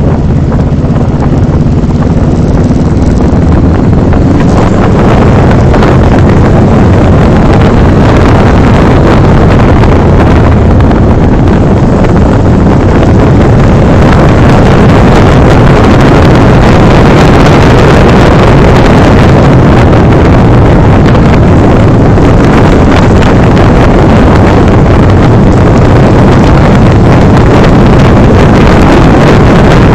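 Loud, steady wind noise buffeting the microphone of a motorcycle riding at speed, with engine and road noise underneath. A steady engine hum shows through in the first few seconds.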